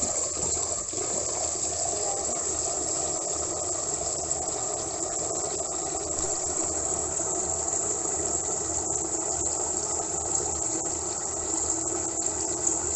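Kitchen tap running a steady stream into a stainless-steel pot of water and wheat grains in a steel sink, while the grains are washed by hand.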